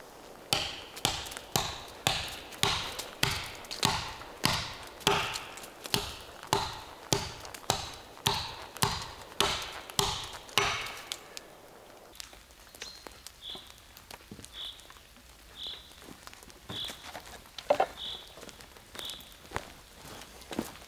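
A series of sharp knocks, about two a second, each ringing briefly, that stops about eleven seconds in. After that come short high chirps about once a second.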